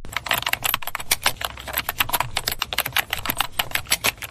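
Typing on a computer keyboard: a quick, uneven run of key clicks, about seven a second, fading out near the end.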